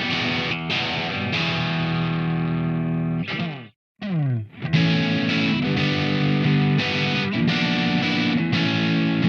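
SLX Raven Modern Pro 24 HH electric guitar with Seymour Duncan humbuckers, played through distortion. A chord rings out, then its pitch dives down and cuts out briefly just before the midpoint, and drops again as it comes back. Rhythmic distorted chords follow.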